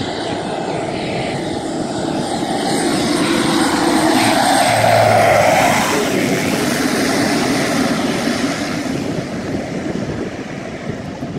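Pilatus PC-12 single turboprop landing and passing close by. The engine and propeller sound builds to its loudest about five seconds in, drops in pitch as the plane goes past, then fades as it rolls out down the runway.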